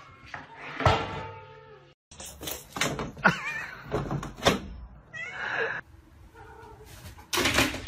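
Domestic cats meowing in short calls, with a few sharp knocks and bumps in between.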